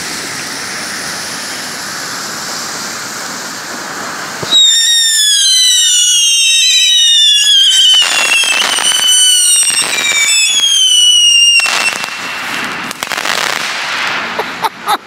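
Ground firework fountains hissing as they spray sparks; about four and a half seconds in, a loud chorus of several whistles starts, each falling in pitch, with a few bangs, lasting about seven seconds. Hissing sparks follow, and crackling sets in near the end.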